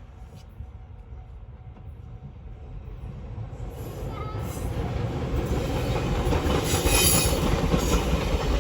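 Train approaching and passing over a level crossing: the rumble of wheels on the rails grows steadily louder over several seconds, with a high wheel squeal as it comes closest.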